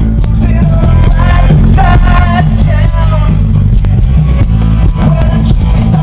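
Music with singing and very heavy bass, played loud through a homemade 12-inch subwoofer built around a Beyma 12LX60 woofer in a vented box, with a steady beat.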